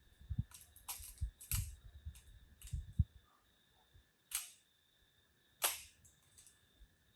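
Minolta XG9 35mm SLR camera being handled with a run of small clicks and knocks, then two sharper mechanical clicks about a second and a half apart as the shutter is tested.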